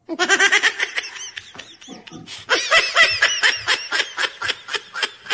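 High-pitched laughter: a fast run of short "ha" sounds, about five a second, that starts and stops abruptly.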